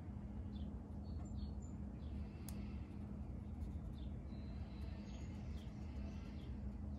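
Steady low room hum, with faint short high chirps every second or so and a single soft tick about midway.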